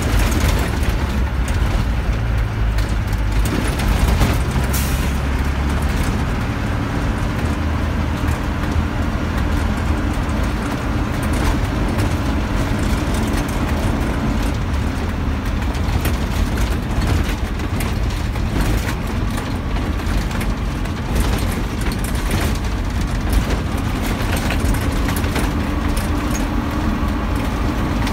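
A large vehicle driving over an unpaved gravel road, heard from inside the cab: a steady low engine and road rumble with frequent small rattles.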